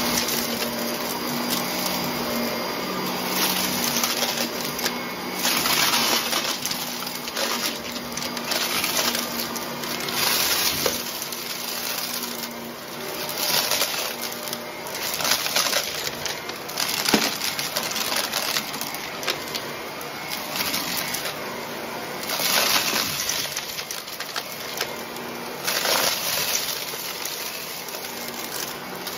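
Shark upright vacuum cleaner running with its brushroll over carpet thick with debris. A thick crunch and rattle of grit is pulled up in surges every couple of seconds as it is pushed back and forth, over a steady motor hum.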